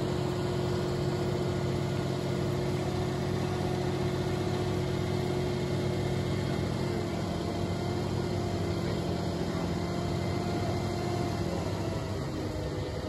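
The GIUFFRE boom truck crane's engine running steadily to power the crane's hydraulics as it moves a load on the hook. It gives an even low hum with a constant tone through it, easing off slightly near the end.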